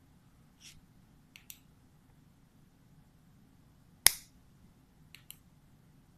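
A single sharp electric spark snapping against the dissected animal's organs, much louder than anything else. Fainter short clicks come about a second before it and again about a second after it.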